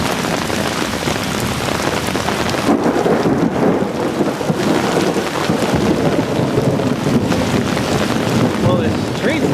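Heavy rain pouring steadily during a thunderstorm, with a rougher, heavier rumble from about three seconds in.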